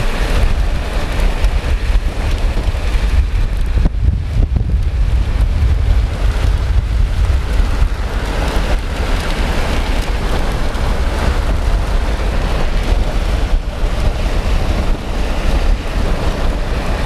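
Strong storm wind buffeting the camcorder's microphone: a loud, uneven rush with a heavy low rumble.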